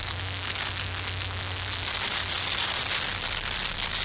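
Homemade alcohol stoves burning with a steady hiss and faint crackle, one of them smoking and trying to catch.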